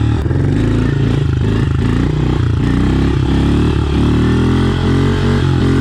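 Honda CRF110F pit bike's small air-cooled single-cylinder four-stroke engine running under riding load, its pitch rising and falling over and over as the throttle is opened and closed.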